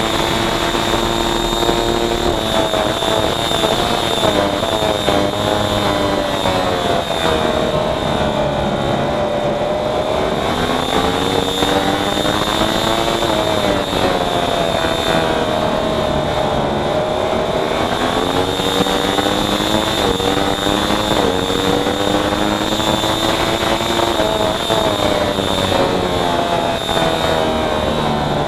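Racing motorcycle engine at race pace, its note rising and falling continuously as it accelerates and slows, with quick steps in pitch at gear changes. A steady high whine sits over it.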